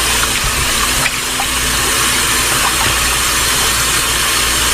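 Kitchen tap running steadily while raw chicken pieces are washed under it.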